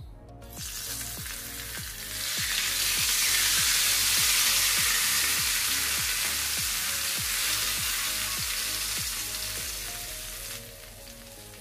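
Hot mustard-oil tadka, with cumin, curry leaves and red chilli in it, sizzling as it is poured onto yogurt kadhi. The hiss starts about half a second in, swells strongly after about two seconds, then slowly fades and drops away near the end.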